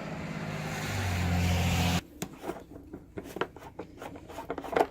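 A motor vehicle passing on the road grows louder over the first two seconds and cuts off abruptly. Scattered light clicks and knocks follow.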